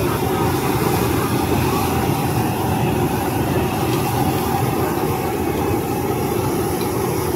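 Steady roar of a stir-fry kitchen: a high-pressure gas wok burner and exhaust fan running.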